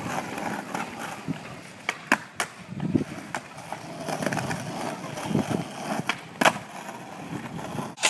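Skateboard wheels rolling on pavement, with sharp clacks of the board hitting the ground: three in quick succession about two seconds in and a loud one past six seconds.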